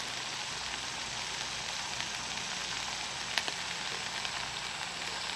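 Country ham slices frying in a skillet over a wood-burning Solo Stove: a steady sizzling hiss, with one sharp click a little past halfway.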